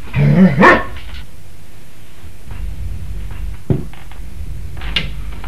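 A dog barks twice in quick succession, then falls quiet over a steady low hum.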